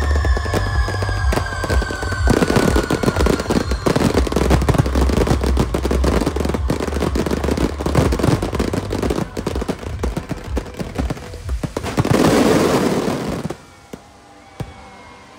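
Fireworks display going off in a dense run of rapid crackles and bangs. For the first few seconds, music with a low pulsing bass plays underneath and then fades out. A last loud surge near the end cuts off abruptly, leaving a couple of single pops.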